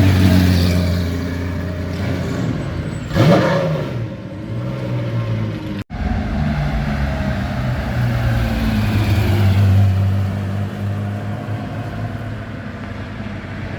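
Car engines running as a convoy of sports cars drives slowly past. About three seconds in, one car goes by loudly with its engine note falling in pitch. After a brief break near the middle, engine notes carry on, rising and falling gently.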